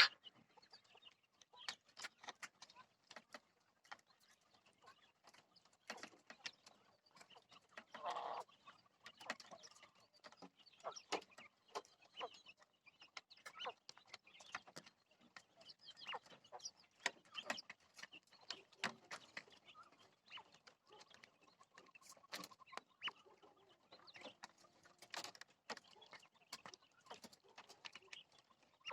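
A flock of 60-day-old jumbo quail giving scattered faint short calls and clucks, with small clicks between them. One fuller call comes about eight seconds in.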